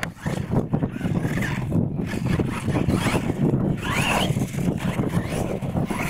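Radio-controlled monster truck driving over dirt ramps, its motor whining up and down in pitch as the throttle is worked, with a sharp rising whine about four seconds in.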